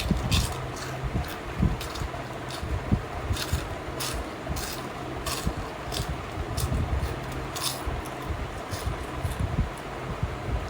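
Close-miked eating sounds: irregular crisp clicks and crunches, a few each second, over a steady low hum.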